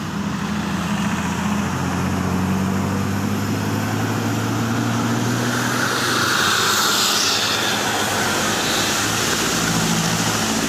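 A large bus engine running with a steady low hum, and a rush of noise that swells and fades about six to eight seconds in. No horn sounds.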